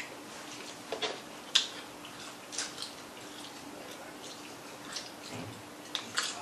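Crispy fried chicken wings being bitten and chewed close to the microphone: scattered crunches and wet clicks at irregular intervals, the loudest about a second and a half in, over a faint steady hum.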